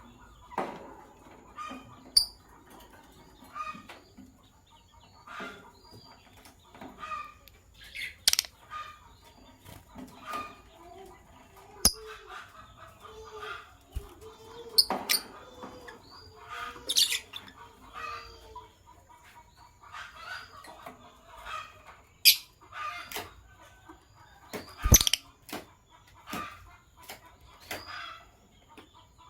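Lovebirds chirping in short, sharp, irregular calls, with a few sharp clicks or knocks among them, one louder knock near the end.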